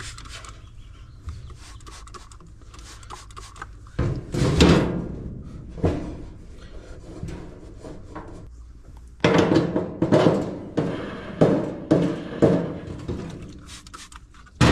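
Hands working on a dryer drum support roller while it is cleaned. There is a scraping clatter about four seconds in, then a quick run of about six short strokes from about nine seconds.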